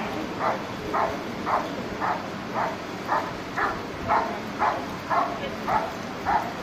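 A dog barking steadily in an even rhythm, about two barks a second.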